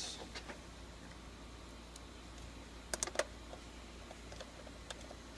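Faint clicks and taps of a copier's hard drive unit and metal panel being handled and seated back in place by hand. The loudest is a quick pair of clicks about three seconds in, followed by scattered small ticks.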